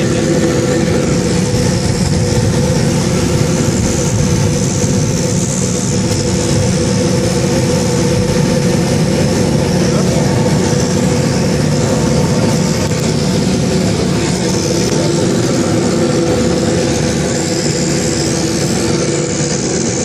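Turboprop engines of a small high-wing commuter plane running loud and steady, heard from inside the cabin as it taxis after landing, with a high turbine whine over a steady low drone. The sound eases slightly near the end.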